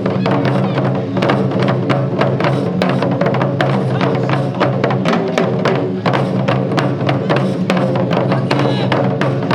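Wadaiko ensemble drumming: Japanese taiko drums struck in a fast, dense run of strokes, loud and even throughout.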